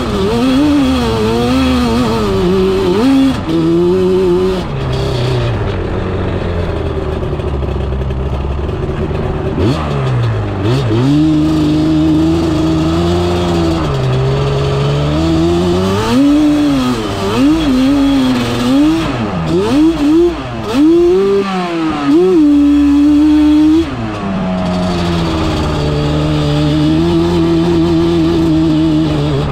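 Yamaha Banshee YFZ350 quad's two-stroke twin engine being ridden hard, revving up and falling back again and again with the throttle and gear changes, with brief drops in revs about ten seconds in and again near twenty-four seconds.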